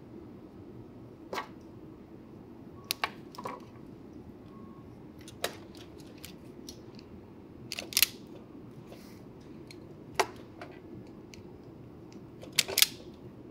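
Small hand tools on thin hookup wire: sharp snips and clicks of wire cutters and strippers, about eight in all, a second or two apart, some in quick pairs.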